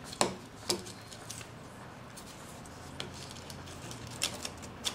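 A thin pointed metal tool scraping and clicking through freshly drilled stitching holes in leather, clearing out the holes; about half a dozen short, faint scratches and clicks at irregular intervals, the sharpest in the first second.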